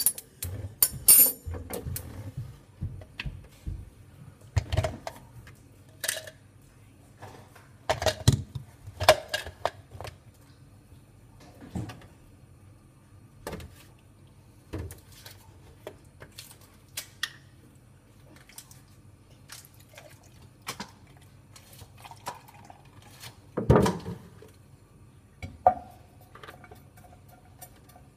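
Kitchen counter work while a milkshake is made: irregular knocks and clinks of containers, a spoon and a blender cup being handled and set down, and milk poured from a plastic jug into the blender cup.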